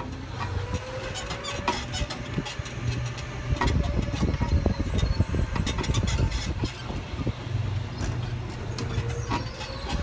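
Golf cart driving along: its motor runs with a faint whine that rises slightly, over a low rumble and frequent rattles and clicks from the cart.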